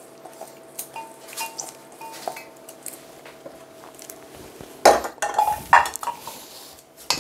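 Stainless steel bowls and a frying pan clinking and knocking against each other while food is tipped into a steel mixing bowl. Light clinks run throughout, with a few louder metal clanks about five to six seconds in and another just before the end.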